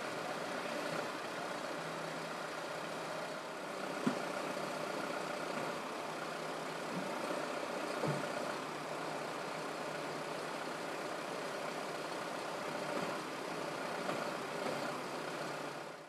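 Heavy diesel rescue vehicles idling with a steady hum, with two short knocks about four and eight seconds in.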